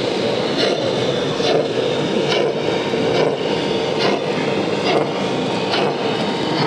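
Large-scale garden-railway model locomotive running past with its open coaches, making a regular click a little more than once a second, over the steady din of a busy exhibition hall.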